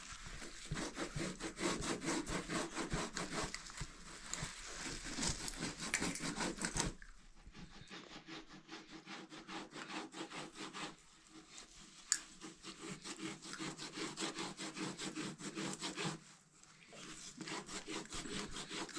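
Cloth being cut by hand: a fast run of short rasping strokes. It drops to a softer run of strokes about seven seconds in.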